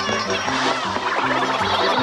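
Upbeat background music with a quick, bouncy bass line that changes notes several times a second.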